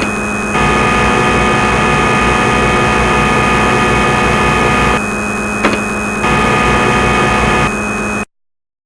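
CNC lathe running: a steady machine hum with a set of whining tones that steps up in two long stretches, as during cutting passes, and drops back between them. There is a single click in the gap. The sound starts and stops abruptly.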